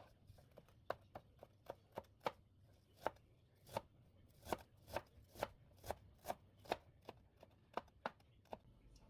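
Knife chopping on a cutting board: a slow, slightly uneven run of sharp knocks, about two a second.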